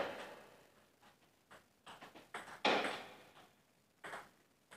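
Table tennis rally: the celluloid ball knocked back and forth by paddles and bouncing on the table, two louder hits (at the start and about two and a half seconds in) among lighter clicks, each echoing briefly in a bare concrete hall.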